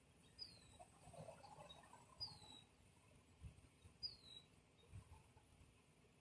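Near silence with a bird repeating a short, high, falling chirp three times, about two seconds apart.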